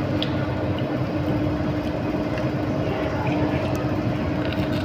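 Steady mechanical hum of a restaurant's ventilation and air conditioning, a constant rushing drone with a low two-note hum, and a few faint clicks over it.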